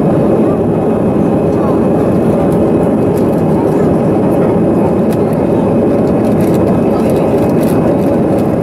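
Cabin noise of an easyJet Airbus A320-family jet airliner in its climb after takeoff: the steady roar of the jet engines and rushing air, heard from inside the cabin by a window seat.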